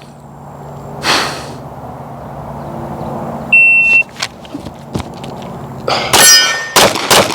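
Shot timer's start beep, one short high tone about halfway through, followed about two seconds later by a rapid string of 9 mm Glock 45 pistol shots fired a fraction of a second apart.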